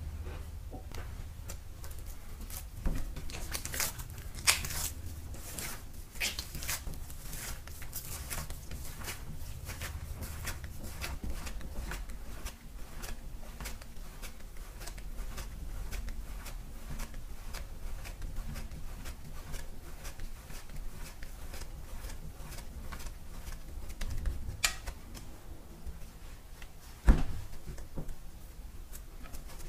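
Hands kneading a ball of buckwheat soba dough in a lacquered kneading bowl: irregular soft pressing, rubbing and slapping of dough against the bowl, with one sharper knock near the end.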